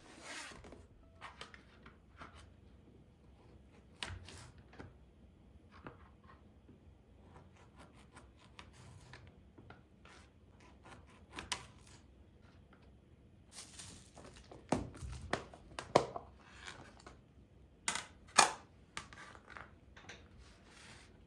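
Kitchen food-preparation handling sounds: scattered light clicks, knocks and rustling, with a few louder clatters between about fifteen and nineteen seconds in.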